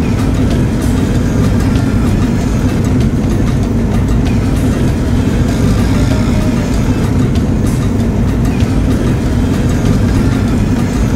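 Steady low rumble of a car's engine and tyres, heard from inside the cabin while driving along the highway at an even speed.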